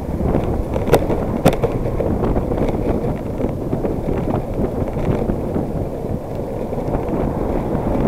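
Wind buffeting the microphone of a handlebar-mounted camera on a moving bicycle, a steady low rushing noise. Two sharp knocks come about one and one and a half seconds in.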